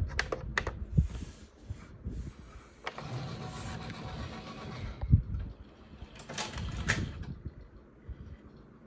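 Technics SL-MC7 CD changer's disc-handling mechanism at work while it searches and scans its discs, now running on a newly replaced drive belt. A few clicks and a clunk come first, then a couple of seconds of motor whirring in the middle, a sharp clunk at about five seconds and more mechanical rattling after it.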